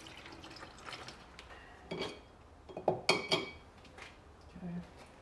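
Light metallic clinks and knocks of hard parts being handled. There are a few scattered strokes, with the loudest cluster of three or four sharp, briefly ringing clinks about three seconds in.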